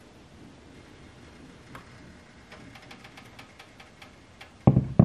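Faint clicks and scrapes of a plastic ladle spreading crêpe batter in a nonstick frying pan, then two loud knocks near the end.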